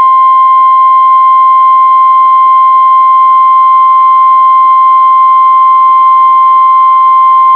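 NOAA Weather Radio warning alarm tone, a loud, steady single tone near 1 kHz with radio hiss beneath it. It signals that a warning broadcast, here a severe thunderstorm warning, is about to follow.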